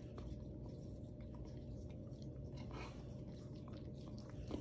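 Faint sounds of a Samoyed licking and chewing a slice of watermelon held out to it, with small scattered clicks.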